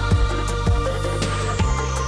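Electronic background music with a steady beat: a kick drum about twice a second under a held bass line and synth tones.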